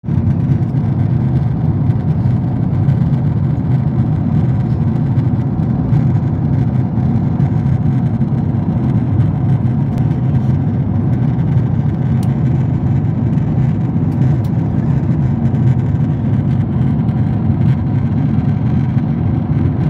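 Steady low rumble of a Boeing 777 airliner cabin in flight: engine and airflow noise, even and unbroken.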